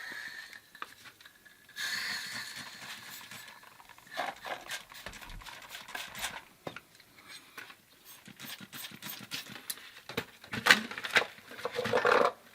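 MAPP gas torch hissing for about two seconds, a couple of seconds in, then scattered clicks and knocks of tools and copper fittings being handled.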